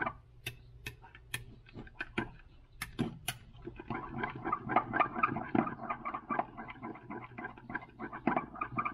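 A utensil stirring liquid soft-plastic lure plastic in a glass measuring cup to mix in powdered colorant: sharp clinks against the glass, then quicker scraping and wet swishing from about four seconds in.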